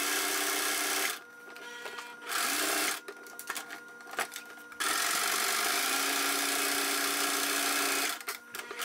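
Kenmore electric sewing machine stitching the folded edge of a fabric flap in stop-start runs: about a second, a brief burst, then a steady run of about three seconds from about halfway in. In the pauses there are small clicks as the cloth is handled.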